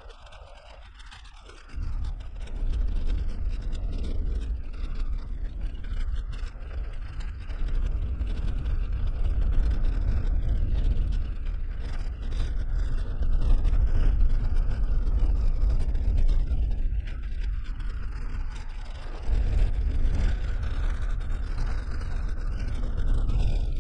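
Road noise of a Suzuki Jimny heard from inside the cabin as it drives on an unpaved gravel track: a steady low rumble of tyres and engine with a rough, scraping hiss. It is much quieter for about the first two seconds, then jumps up sharply.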